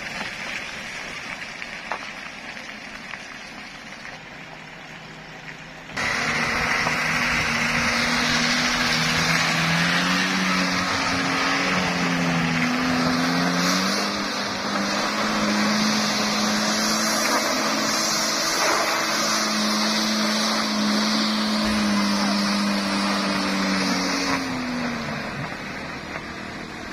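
Suzuki Carry mini truck's engine working hard as it climbs a muddy slope, its revs rising and falling again and again. It comes in suddenly loud about six seconds in, after a quieter stretch, and drops away near the end.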